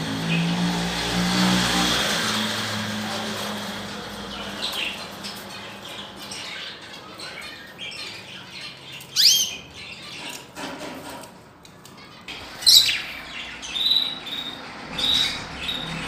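Caged canaries chirping: a handful of short, sharp rising calls, one loud one about nine seconds in and a quick cluster near the end. A low steady drone runs underneath, strongest in the first few seconds.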